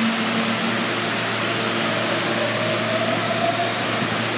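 Steady hum and rush of a subway station as an R160A-2 train pulls out into the tunnel. A faint whine rises about halfway through, and a short high whistle sounds about three seconds in.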